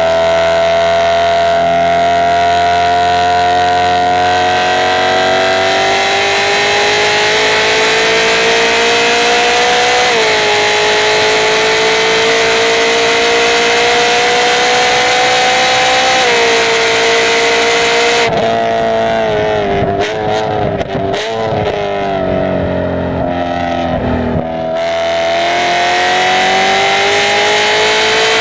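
Car engine driven hard on a racetrack lap: revs climb steadily through the gears with two sharp upshifts, then fall away under braking with quick downshift blips a few seconds before the end, and climb again as it accelerates out of the corner.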